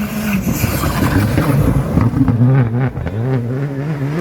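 Rally car's turbocharged four-cylinder engine under hard driving, its pitch rising and dropping several times as the driver works the throttle and gears.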